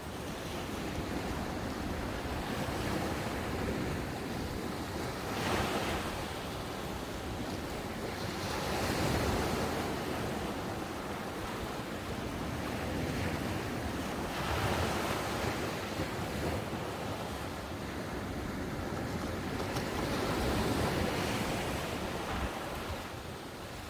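Ocean waves breaking on a sandy beach shore, a continuous wash of surf that swells as each wave breaks, about every five seconds, with wind buffeting the microphone.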